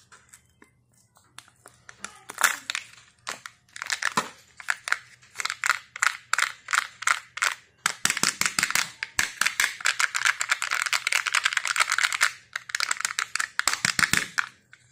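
Glitter-coated foil wrapper crinkling and tearing as it is peeled off a Kinder Joy egg by hand: a run of close, sharp crackles, thickest in the middle and latter part.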